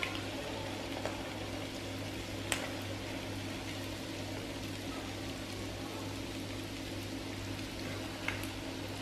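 Oil sizzling steadily around patties of instant rice porridge and egg shallow-frying in a pan over low heat, with a low steady hum underneath. Chopsticks click lightly against the pan three times.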